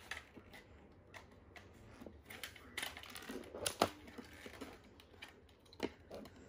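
Scattered light clicks and knocks of a plastic toy remote control being handled and set down on a cardboard box, the loudest knock near the middle.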